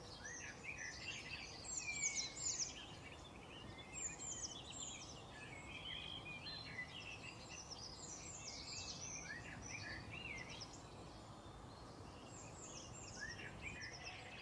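Many small birds chirping continuously in short, downward-sliding calls over a steady low background noise; loudest about two seconds in.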